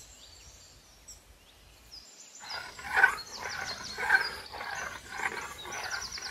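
A metal spoon stirring milk into whisked sour curd in a metal pan, starting a little over two seconds in as a run of rhythmic swishing, scraping strokes: mixing the curd starter through the milk for misti doi. Birds chirp throughout.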